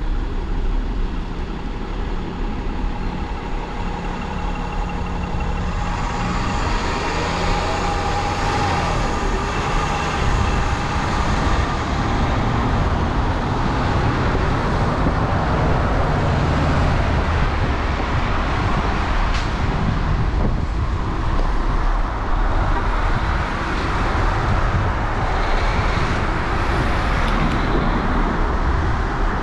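Road traffic on a wet road, heard from a moving bicycle: a steady low rumble, joined about six seconds in by a louder hiss of tyres as vehicles pass, with a falling engine tone around ten seconds in.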